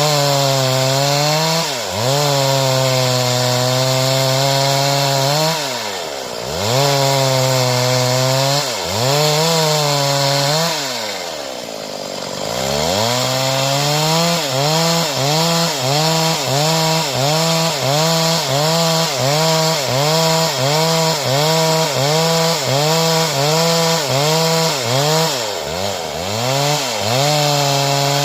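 Stihl two-stroke chainsaw cutting a board. It runs at high revs, drops toward idle and revs back up three times, then from about halfway its speed dips quickly and regularly, a little more than once a second.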